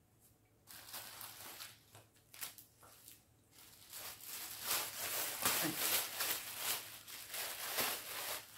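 Rustling and crinkling of packaging and cloth as embroidery pieces are handled and pulled from a cardboard box, in irregular bursts that grow busier and louder from about halfway through.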